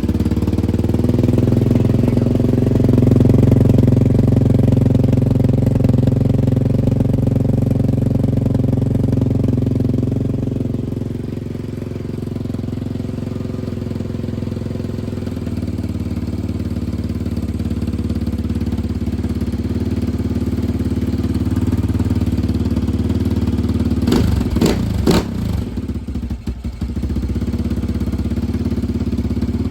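Yamaha Raptor 700 ATV's single-cylinder four-stroke engine running steadily at idle, a little louder for the first ten seconds or so, then settling. A brief clatter of sharp clicks comes about twenty-four seconds in.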